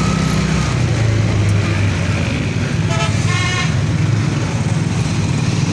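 Rickshaw engine running steadily under way, with road noise, and a vehicle horn tooting once, briefly, about three seconds in.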